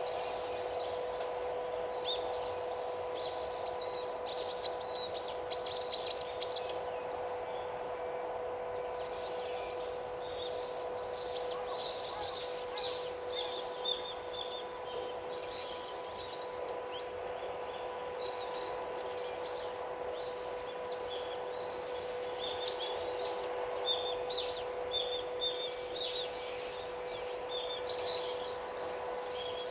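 Small birds chirping and twittering in several bursts of rapid high notes, over a steady low hum.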